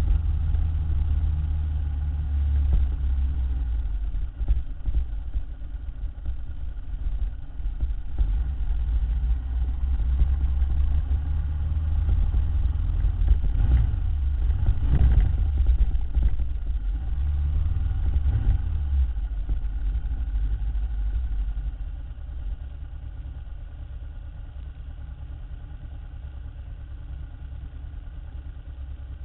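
Ducati motorcycle engine running at low riding speed with a steady low rumble, swelling briefly about halfway through, then dropping to a quieter, steady run about three-quarters of the way in.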